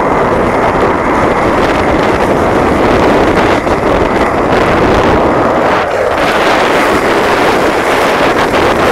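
Skateboard wheels rolling fast on asphalt with wind buffeting the microphone: a loud, steady rush with no letup.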